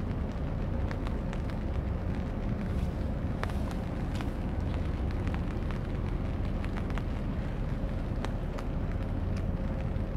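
Steady low rumble of wind on the microphone by open water, with a faint steady hum and scattered light clicks.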